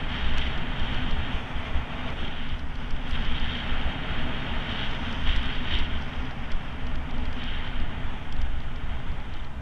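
Steady rumble of riding over block paving, with wind rushing across the microphone; a continuous noisy roar, heaviest in the low end.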